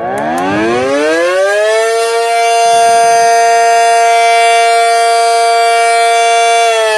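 A small mechanical hobby siren (a "mini cyclone") spinning up. Its wail climbs steeply for about two seconds, holds a steady tone, then begins to wind down near the end.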